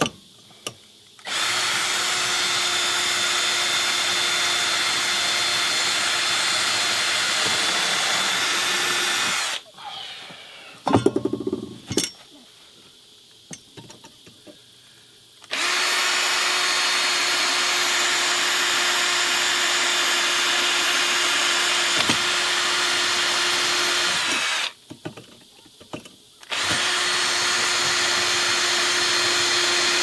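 Cordless drill running steadily at one pitch, boring a hole down through a metal bracket into a 2x4, in three long runs: from about a second in until about 9 s, again from about 15 s to about 25 s, and from about 26 s on. Between the first two runs come a few sharp knocks.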